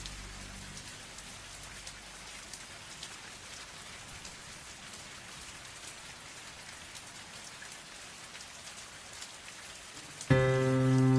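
Steady rain falling, an even hiss with scattered individual drops ticking. Near the end a loud sustained chord of soft music comes in.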